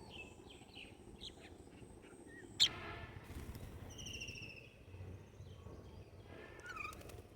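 Small wild birds chirping, with a quick run of repeated high notes in the middle and a single sharp click about two and a half seconds in.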